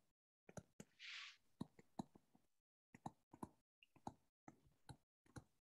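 Near silence with faint scattered ticks of a stylus tapping on a tablet screen while writing, and a short soft hiss about a second in.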